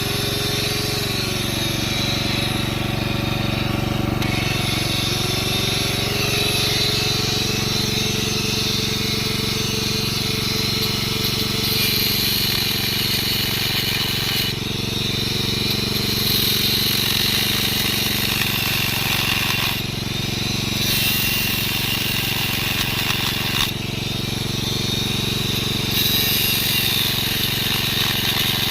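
Angle grinder running steadily, its pitch dipping and recovering as it is loaded, with spells of high-pitched grinding every few seconds as the disc bites into metal, grinding off the pins that hold a chainsaw part together.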